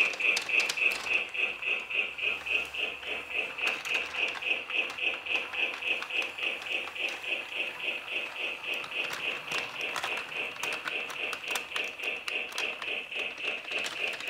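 Lionel Little Lines battery-powered toy train running along its plastic track: a steady whir of its small motor and gears, pulsing about five times a second with light rhythmic clicking.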